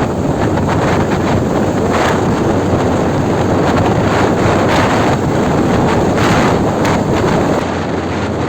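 Wind buffeting a camera microphone on a moving motorcycle, a loud steady rush.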